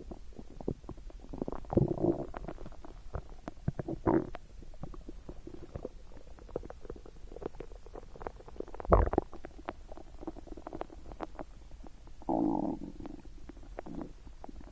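Human stomach gurgling and rumbling, full of small pops and squelches. There are louder gurgles about two and four seconds in, a sharp loud pop about nine seconds in, and a longer gurgle near the end.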